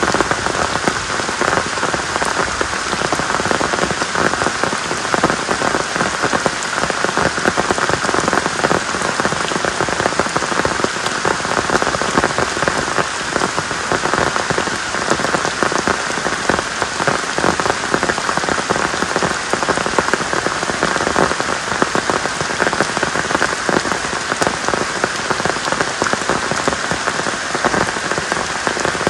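Heavy rain falling steadily, a dense patter of drops splashing into puddles on muddy ground.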